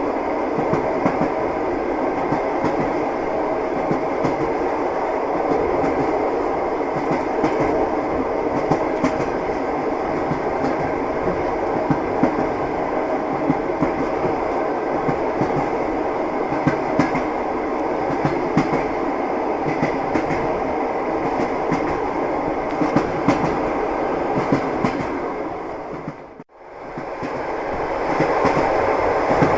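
Moving train running steadily, with the clatter of its wheels over the rails and a constant rumble. About 26 seconds in, the sound fades out to nothing and fades back up within a second or two.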